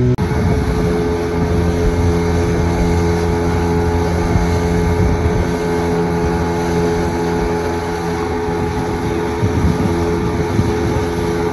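Small boat's outboard motor running at a steady speed, an even drone, with water rushing and splashing along the hull.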